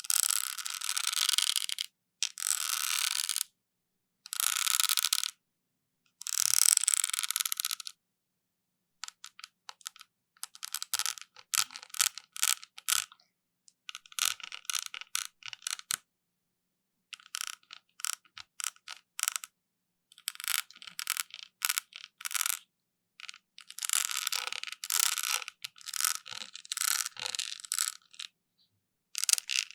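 Close-miked ASMR trigger sounds: five scratchy rubbing strokes of about a second each, separated by short silences, then, from about nine seconds in, runs of quick crackling ticks lasting one to three seconds with brief pauses between.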